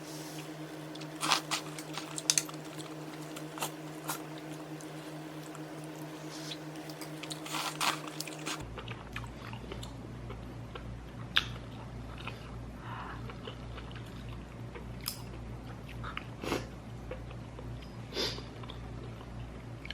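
A person eating shabu-shabu hot-pot food close to the microphone: chewing and biting, with scattered sharp clicks. A steady low hum runs underneath and changes character about a third of the way through.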